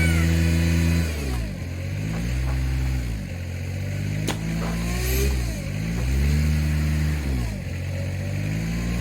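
Bobcat skid-steer engine working hard as it pulls, its speed dropping and climbing back four times. There is a single sharp crack about four seconds in.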